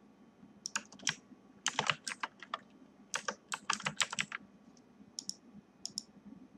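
Computer keyboard typing in three quick bursts of key clicks over the first four seconds or so, then a few single clicks near the end.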